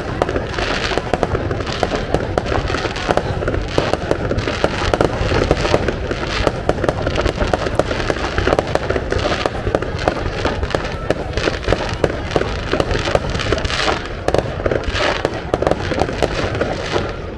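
Fireworks display: aerial shells bursting in a dense, unbroken barrage of bangs and crackles.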